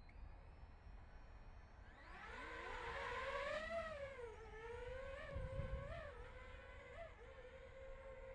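DJI FPV drone's motors and propellers spooling up about two seconds in and lifting off: a whine that rises in pitch, wavers up and down as the drone steadies in the air, and settles to a steady hover tone near the end. A low rumble of wind on the microphone comes midway.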